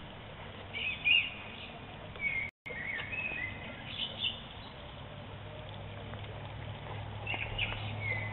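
Small birds chirping and twittering in several short high spells, over a low steady hum.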